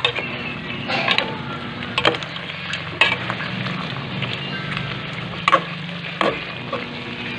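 A spoon stirring chunks of meat and saba banana in tomato-sauce adobo in a metal pot, knocking against the pot about five times, over a steady sizzle.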